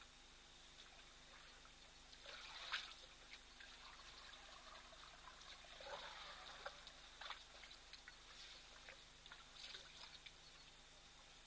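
Faint water trickling and splashing from elephants drinking at a waterhole, their trunks dipping into the water, with a few soft splashes, the plainest about two and a half seconds in.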